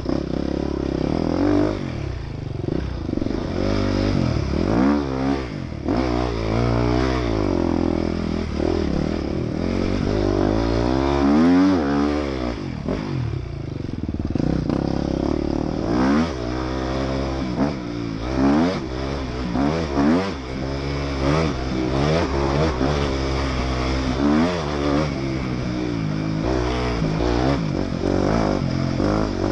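Enduro motorcycle engine heard from on board, revving up and down again and again as the rider opens and closes the throttle and changes gear over rough dirt track.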